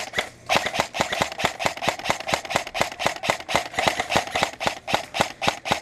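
Airsoft guns firing: a rapid run of sharp shots, about seven a second, starting about half a second in.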